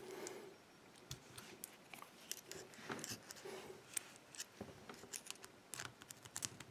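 Faint, scattered small metal clicks and scrapes as two small screwdrivers pry at the retaining clips on the plug of a BASI euro cylinder lock.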